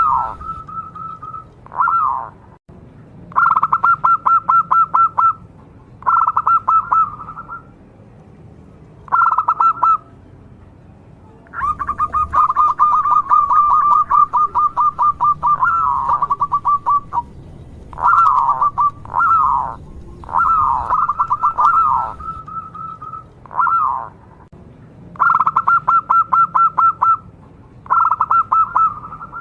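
Zebra dove (perkutut) cooing in repeated phrases: runs of rapid staccato notes alternating with short falling coos, about a dozen phrases with brief pauses between.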